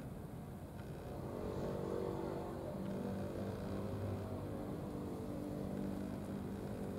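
An engine running with a steady hum, growing louder about a second in and then holding.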